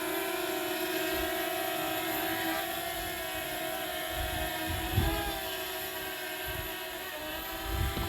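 Small quadcopter drone's propellers whining steadily in the air, the pitch wavering slightly as it fights strong wind. Gusts buffet the microphone with low rumbles, most strongly about five seconds in and near the end.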